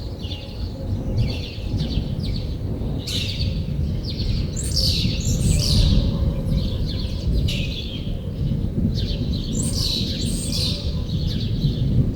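Songbirds chirping and trilling over and over, above a steady low rumbling noise.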